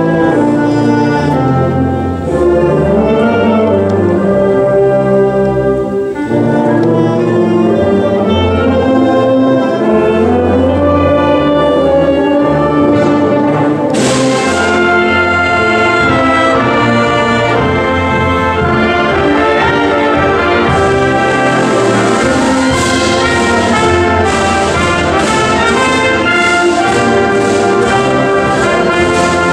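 Youth concert band playing a piece together, cornets and trumpets to the fore with lower brass beneath. There is a loud crash about halfway through, and repeated high percussion strokes run through the last third.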